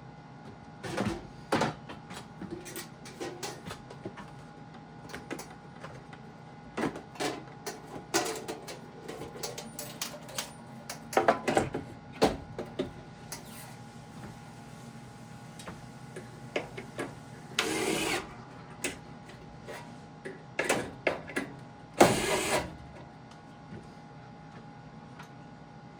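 Clicks, knocks and clatter from a fire alarm control panel and its screws being handled and fitted to a wall, over a faint steady hum. Two short, louder bursts of noise come in the latter half.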